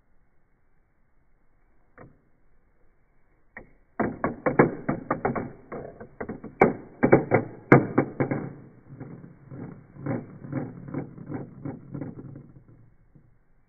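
Metal marble rolling and rattling down through a Gravity Maze tower of clear plastic pieces: a click or two, then about eight seconds of rapid clattering that thins out and stops near the end.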